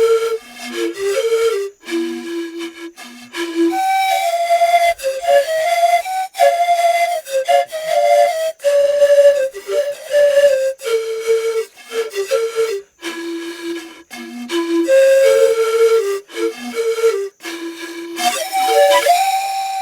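A lively melody played on a flute-like wind instrument, quick stepping notes with short breaks between phrases. Near the end it rises to a held high note with a breathy hiss.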